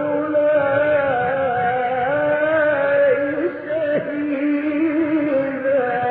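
A male Quran reciter's voice holding a long, ornamented melodic line in the mujawwad style, the drawn-out vowel of a verse ending, with a pitch drop about four seconds in.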